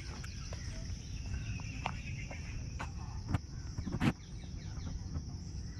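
Forest insects, crickets or similar, trilling steadily at a high pitch, with scattered short bird chirps. Two sharp knocks about three and four seconds in are the loudest sounds.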